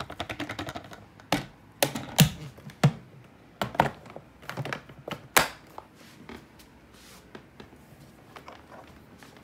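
Clear plastic vacuum dustbin being emptied onto a carpet. A fast rattle of clicks comes first, then a series of sharp knocks and taps of the plastic bin, loudest around two seconds in and again around five seconds in, fading to a few faint clicks.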